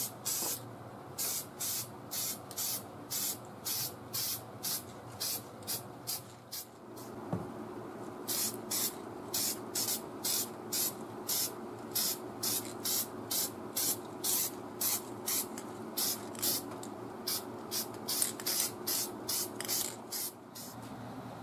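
Aerosol spray can sprayed in quick short bursts, about two hisses a second, with a short pause near the middle. A steady low hum comes in partway through.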